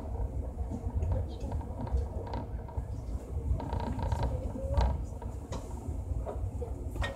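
Moving train carriage heard from inside: a steady low rumble of the running gear on the track, with the car body creaking and clicking now and then.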